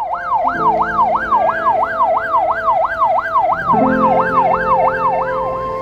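Police car siren in a fast yelp, its pitch rising and falling about three times a second, cutting off near the end. Soft background music plays underneath.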